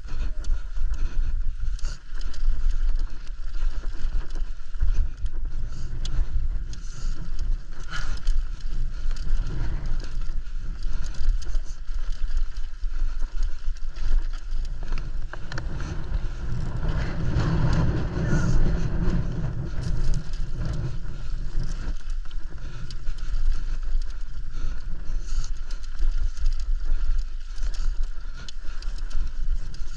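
Mountain bike descending a rough trail, heard from a GoPro on the ride: steady rushing wind and tyre noise, dotted with frequent small knocks and rattles from the bike. It swells louder a little past the middle.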